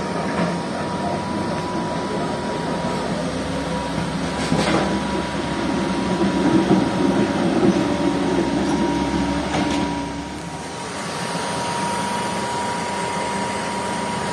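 Diesel engines of a crawler excavator and dump trucks running steadily, with a constant high whine over the engine sound. It swells in the middle and dips briefly about ten seconds in.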